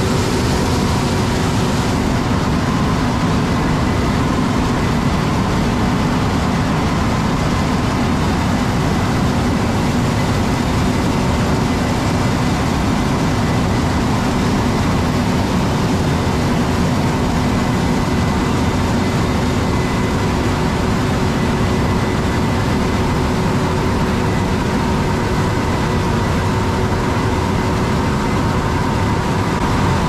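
Heavy diesel farm machinery running steadily at constant speed, a dense even drone with steady whining tones over it.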